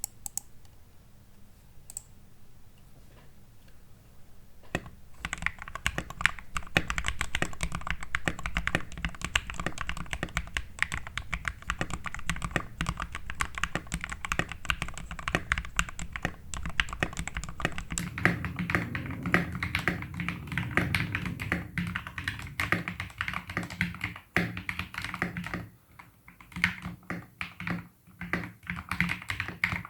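Royal Kludge RK71 mechanical keyboard with lubed Gateron Red linear switches, tape mod and Poron case foam, being typed on. A few scattered keystrokes at first, then fast continuous typing from about five seconds in, with brief pauses near the end.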